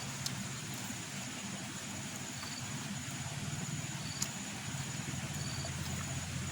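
Steady low engine-like rumble, with two faint sharp clicks about a third of a second and about four seconds in.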